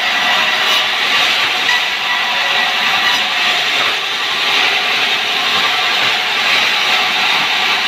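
Sawmill band saw running with a loud, steady hiss and whine that holds unchanged throughout.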